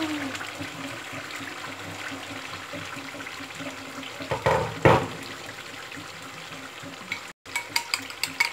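Stew simmering in a pot with a steady sizzling hiss, with two short louder noises about four and five seconds in. Near the end, eggs are beaten in a ceramic bowl, giving a fast run of clinks, several a second.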